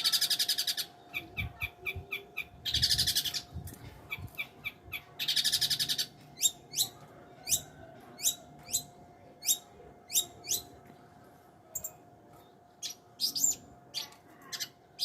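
Long-tailed shrike (cendet) calling: three harsh, rasping buzzes of under a second each in the first six seconds, then a run of short, sharp chipping notes at about two a second. A faint steady hum runs underneath.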